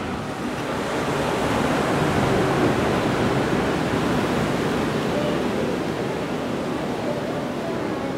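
Ocean surf breaking and washing in, a steady rush that swells over the first two seconds and slowly eases off.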